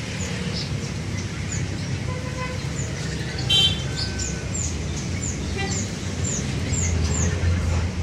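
A caged songbird gives short, high, falling chirps, about two a second, starting about two seconds in, with one louder call in the middle. A steady low rumble of street traffic runs underneath.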